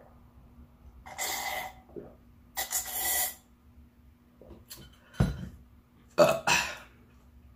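A person blowing out two long, hard breaths, then a short knock and a rough, cough-like throaty sound near the end, as a swallow of hot toddy burns going down.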